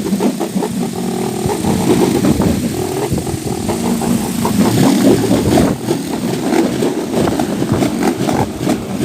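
Wind-driven propeller toy (enter-enteran) spinning in strong wind, giving a loud, motor-like droning whir with a rapid flutter that swells and fades with the gusts.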